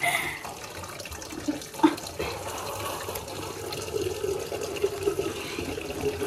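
Steady running water, like a tap running into a sink, with a steady mid-pitched tone joining it about halfway through.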